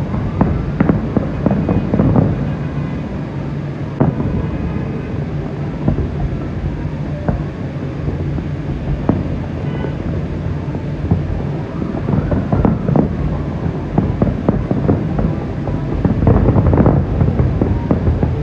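Fireworks display bursting: repeated sharp bangs and crackles over a steady low rumble, thickest about a second in, around twelve seconds in and near the end.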